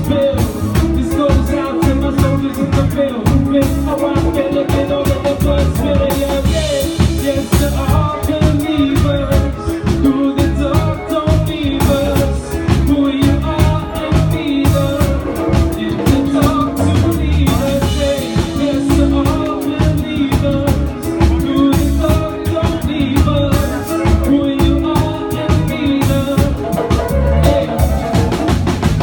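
Live band playing amplified music: a drum kit keeping a steady beat under electric guitars, bass and violin.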